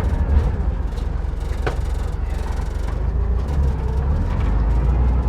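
Split-window VW bus's air-cooled flat-four engine running with a steady low rumble, heard from inside the cabin. A short squeak comes about one and a half seconds in.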